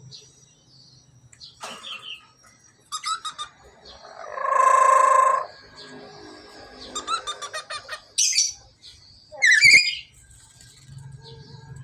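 Male black-capped lory calling: bursts of quick chattering notes, a long loud drawn-out call about four seconds in, and short sharp sweeping calls near the end.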